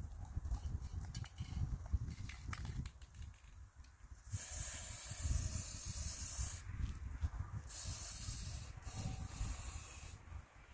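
Aerosol spray-paint can spraying in three short bursts, each hiss starting and stopping sharply, the last two close together.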